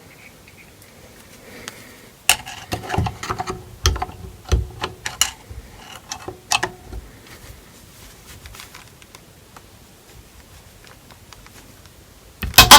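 Steel screwdriver tips clicking, knocking and scraping on a distributor as they are worked in to pry off a seized circlip. A cluster of sharp clicks comes a couple of seconds in, then a lull, then one louder clatter near the end.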